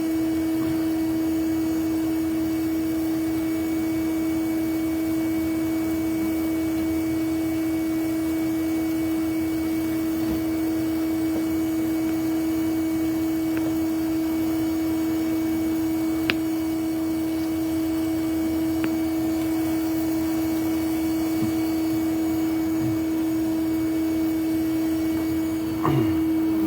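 A vacuum motor running steadily with a constant even hum, typical of a bee vacuum used to draw live bees off the comb.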